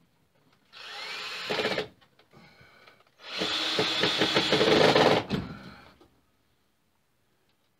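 Cordless drill/driver driving 1.5-inch Phillips drywall screws into a wooden mounting board, in two runs: a short one about a second in and a longer, louder one from about three seconds to five and a half.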